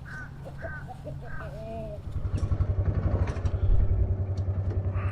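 A bird calls several times with short arching cries. About two seconds in, an engine comes up with a fast low pulsing and runs on, louder.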